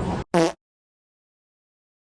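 A short vocal sound from a person, about half a second in, then dead silence for the rest.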